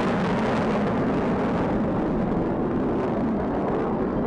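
Jet engine noise from four F-16 Fighting Falcons flying overhead in formation: a steady rushing noise whose high end fades over the second half as the jets move away.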